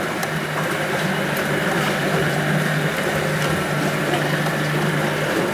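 A boat's motor running steadily, an even hum with no change in pitch.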